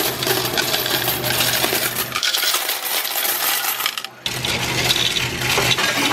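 Loose coins, pennies, nickels, dimes and quarters, poured from a glass jug onto the metal tray of a Coinstar coin-counting machine and pushed along by hand, clattering and jingling continuously. A steady low hum runs underneath and drops out for about two seconds midway.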